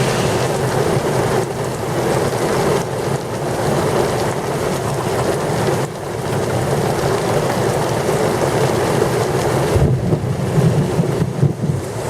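Heavy rain pouring steadily during a severe thunderstorm, with gusting wind; the low rumbling surges grow stronger about ten seconds in.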